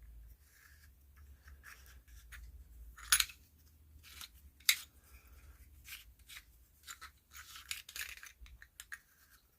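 Parts of a vintage metal flashlight scraping and clicking by hand as a piece is fitted back in. There are scattered light scrapes, with two sharper clicks about three and four and a half seconds in.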